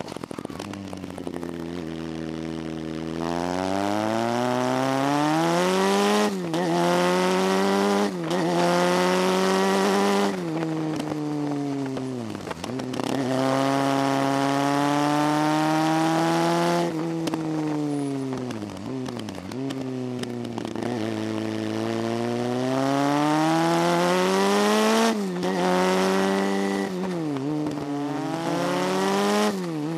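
Motorcycle engine heard from on the bike, climbing in pitch as it accelerates, with short dips at gear changes about 6, 8 and 10 seconds in. It drops in pitch to a low note as the bike slows for a bend, about 12 seconds in and again near 19 and 26 seconds, then pulls up again.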